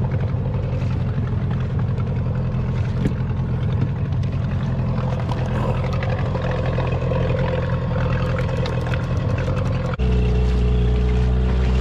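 Outboard motor of a small inflatable boat running steadily, heard from on board with water and wind noise over it. About ten seconds in the sound changes abruptly to a louder, deeper steady running.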